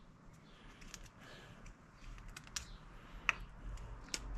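Side cutters snipping plastic zip ties off a motorcycle fuel pump assembly: several sharp, faint clicks at uneven intervals.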